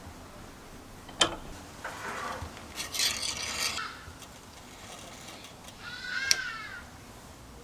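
Hand rubbing and scraping on a small tool, with a sharp click about a second in. A cat meows once, briefly, near the end.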